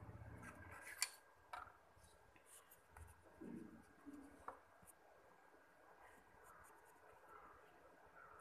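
Faint pencil strokes scratching on paper, with a few sharp clicks, the loudest about a second in.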